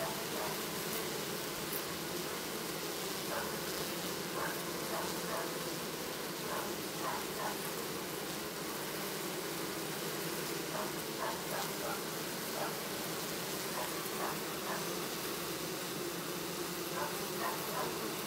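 Honeybees buzzing in a steady, continuous hum.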